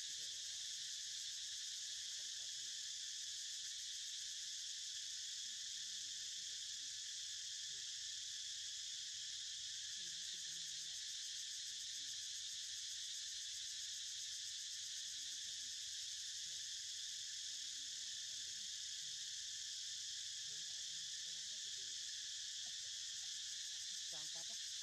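Steady, unbroken high-pitched chorus of insects humming in the trees, with faint low murmurs now and then underneath.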